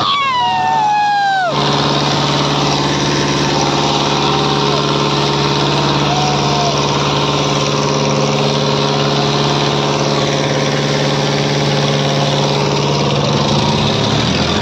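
Farmtrac 60 tractor's diesel engine running steadily at close range, with crowd voices shouting over it and one long falling shout near the start.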